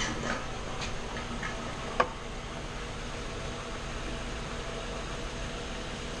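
Steady fan-like hum with a few small handling clicks near the start and one sharp click about two seconds in, as small parts and double-sided tape are handled.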